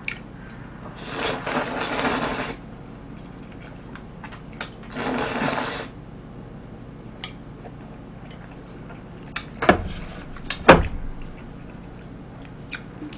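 Glass noodles (dangmyeon) from tteokbokki being slurped in two long, airy slurps, about a second in and again about five seconds in. Then a few sharp knocks.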